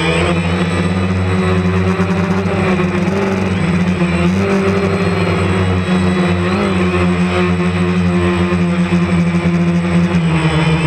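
DJI Phantom 2 quadcopter's motors and propellers buzzing, heard up close from the camera on the drone itself, a steady whine whose pitch slides down and up as the drone manoeuvres.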